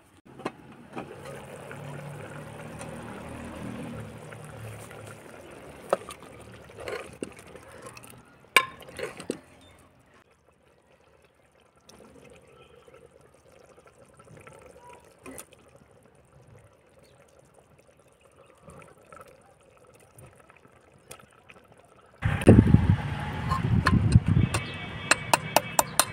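Cooking sounds from a pot of broth on a wood fire: metal clinks and liquid splashing and pouring as chicken pieces are added to the pot. Near the end, louder splashing and scraping as a metal ladle stirs it.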